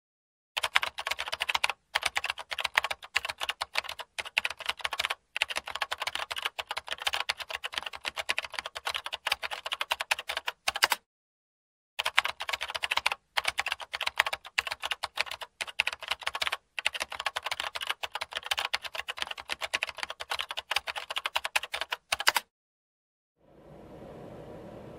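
Rapid, dense clicking in long runs, broken by short pauses and one longer gap about halfway through, stopping a couple of seconds before the end; a faint steady hiss follows.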